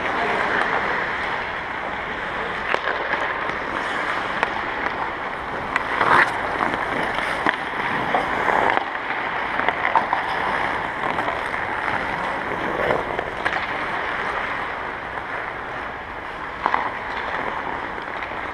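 Ice hockey skates scraping and carving the ice in a steady hiss, with a few sharp clacks of sticks on pucks, the loudest about six seconds in, echoing in a large ice arena.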